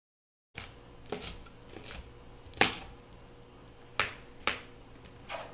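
Chef's knife chopping bell peppers on a plastic cutting board: about nine sharp, uneven knocks of the blade hitting the board, starting after half a second of dead silence, the loudest near the middle.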